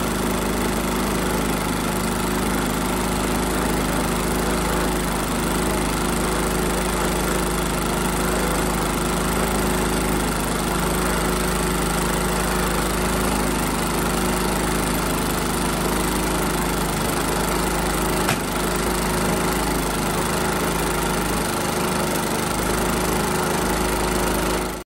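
Predator 3500 inverter generator's single-cylinder OHV engine running steadily.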